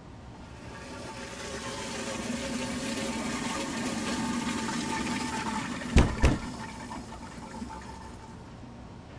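Toilet flushing: rushing water that swells and then eases off into a quieter hiss of the cistern filling. Two sharp knocks come close together about six seconds in.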